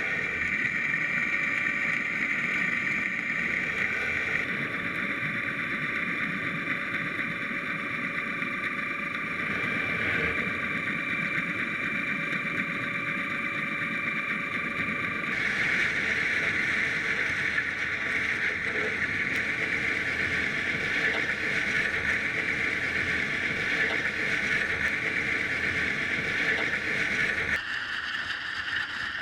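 Steady mechanical hum with hiss. Its tone shifts abruptly about four seconds in, again around fifteen seconds, and near the end.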